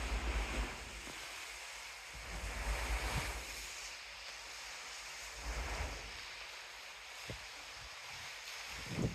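Wind buffeting the microphone in gusts over a steady hiss of sea wash.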